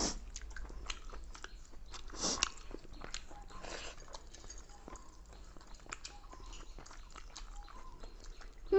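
People eating rice with jackfruit curry: soft chewing and many small wet mouth clicks, with a few short, louder hissy noises.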